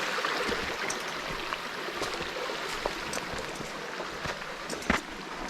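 Creek water rushing over rocks, a steady noise that slowly grows fainter, with scattered small knocks and one sharper knock near the end.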